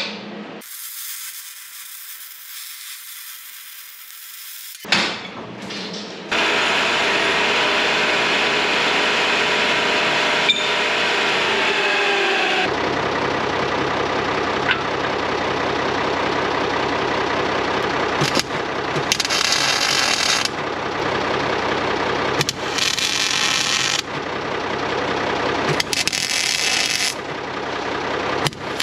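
A power tool running steadily on metal, with harsher bursts every couple of seconds in the second half. A single knock comes about five seconds in, before it starts.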